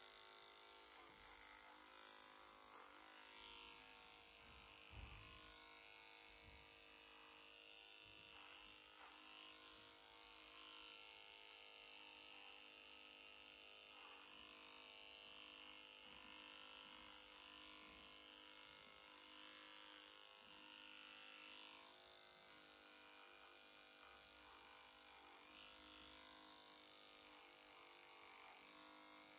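Electric horse clippers buzzing faintly and steadily as they trim the short hair on a Friesian horse's lower jaw and face, with one brief low thump about five seconds in.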